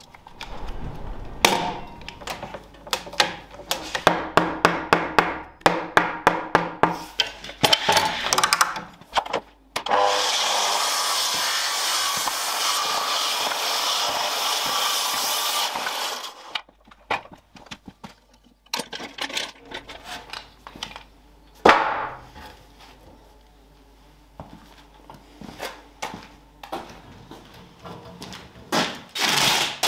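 Oak joists being sawn to length and handled. A run of quick, rhythmic sawing strokes is followed by about six seconds of steady saw noise, then scattered knocks and clatter of timber, the loudest knock about two-thirds of the way through.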